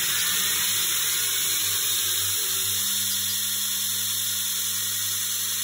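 Belt grinder running with a Kh12MF steel knife blade held in a sliding jig against a ceramic Actirox abrasive belt: a steady grinding hiss over the motor's hum.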